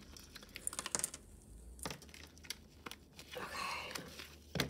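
Paper jewelry pouch rustling and crinkling as a fine chain necklace is drawn out of it, with scattered light clicks.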